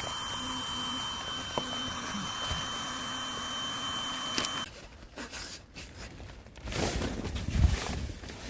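A steady high whine over a low hum, which stops abruptly about halfway. After that, gusty wind buffets and rustles with a loud low rumble near the end.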